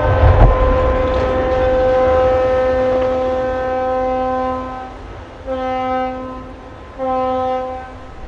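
A ship's horn sounds one long blast, then two short blasts, as a newly built cargo ship side-launches into the river. A low rumbling splash comes right at the start, as the hull hits the water.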